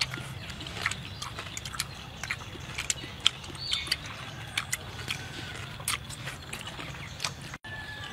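A person eating with her fingers: chewing and lip smacking, heard as many irregular, sharp wet mouth clicks over a steady low background hum.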